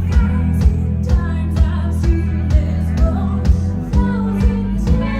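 Live rock band playing a pop-rock song, with the drums keeping a steady beat of about two hits a second over bass and guitar, and a voice singing.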